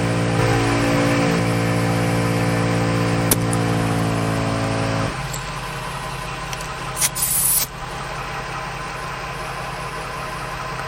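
A 12 V ARB onboard air compressor runs steadily while inflating a tyre, over the Ford Transit's idling engine. The compressor cuts off abruptly about five seconds in, as the tyre reaches pressure, leaving the engine idling, and a brief hiss of air follows a couple of seconds later.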